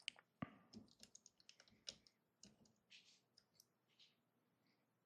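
Faint, scattered clicks and taps of plastic LEGO pieces being handled, a minifigure being fitted back into the car's seat, with a couple of soft rustles near the end of the clicking.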